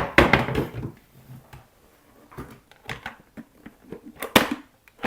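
Plastic parts of a Shark cordless stick vacuum being handled and fitted back together: a run of light knocks and clicks, with a sharper click about four seconds in.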